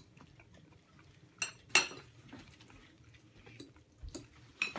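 A metal fork clinking against a plate twice, a quarter second apart, about a second and a half in, then a few fainter ticks.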